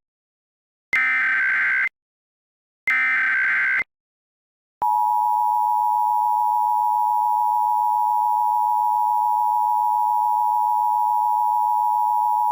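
Emergency Alert System SAME header: two bursts of screechy data warble, about a second each. Then, about five seconds in, the steady two-tone EAS attention signal sounds and holds. Together they announce an emergency alert, here a civil danger warning.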